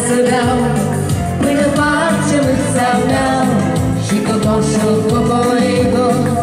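A woman and a man singing a duet through microphones over amplified live band music with a steady beat: Moldovan lăutari-style wedding music.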